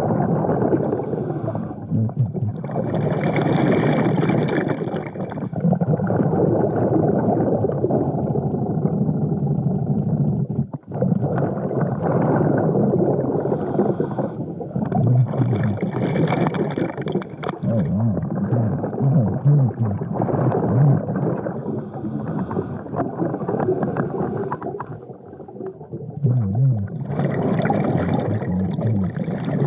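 Underwater breathing of a diver on a regulator: a hiss of air recurring about every twelve seconds, with the rumbling gurgle of exhaled bubbles in between.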